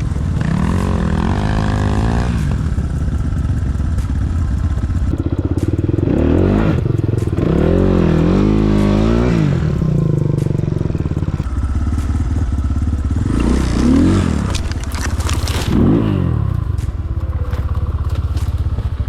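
Enduro motorcycle's single-cylinder engine revving up and down in repeated waves as it is ridden over rough ground.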